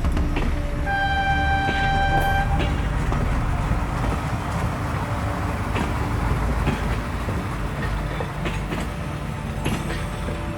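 A train horn sounds one steady note for about a second and a half near the start, over the continuous rumble of a moving train.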